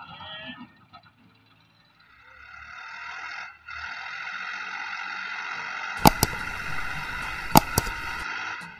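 Background music fades in about two seconds in and holds steady. Over it come sharp click sound effects from an animated subscribe button, two about six seconds in and two more about a second and a half later.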